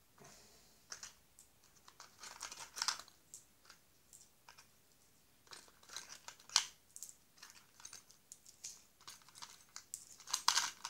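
Tin foil crinkling as a foil-wrapped bundle is handled, with irregular light clicks and ticks of small metal tool bits knocking together.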